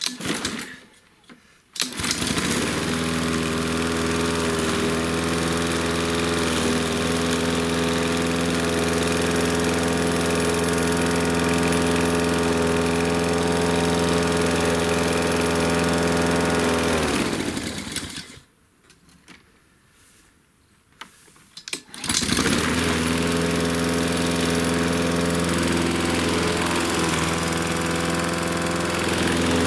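Honda GCV160 petrol engine on a Husqvarna lawn mower starting, running at a steady speed with no surging, then switched off and winding down. After a few seconds' pause with a couple of small clicks it starts again and runs steadily. The even running is that of a carburettor cleared of its surging with Sea Foam Motor Treatment.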